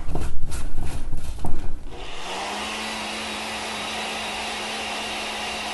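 A few knocks and clicks as the blender cup is handled and set in place. About two seconds in, a countertop blender's motor starts and runs at a steady speed: a level whir with a low hum, blending jalapeños, fresh herbs and a little water into a smooth green chutney.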